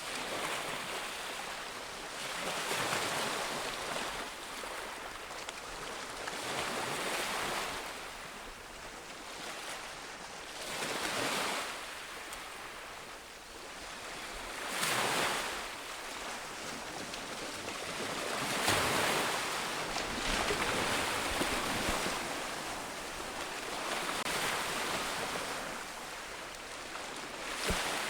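Ocean waves breaking on a beach, the surf swelling and easing every few seconds, with a louder break about fifteen seconds in and another about nineteen seconds in, over a steady wash of wind.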